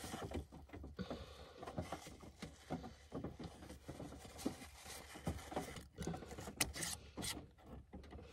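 Faint rustling and light, irregular clicks of a paper towel wiping the rim of a glass canning jar, with a few sharper clicks in the second half as the jar's metal lid is handled.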